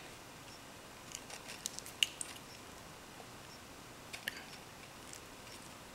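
Faint, scattered small clicks of fingers handling a tiny LED bulb and the ends of wire leads: a cluster of clicks between about one and two seconds in, and a couple more about four seconds in.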